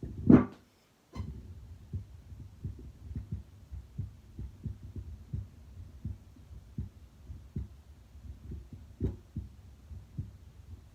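Heart sounds through a stethoscope at rest: a steady run of regular, low lub-dub beats. Near the start comes a loud brief rustle, then a short dropout and a click, as the chestpiece is shifted.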